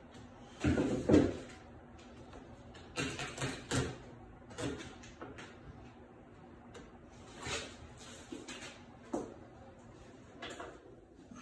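Lace stencil being peeled and handled on a freshly painted panel over newspaper: a string of short, irregular rustles and crinkles, the loudest about a second in.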